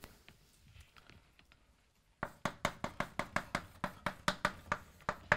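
Chalk tapping and scraping on a blackboard as words are written: after a near-silent start, a quick run of sharp taps sets in about two seconds in, roughly six a second.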